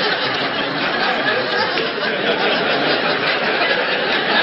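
Stand-up audience laughing, a steady wash of crowd laughter, with two men chuckling close by.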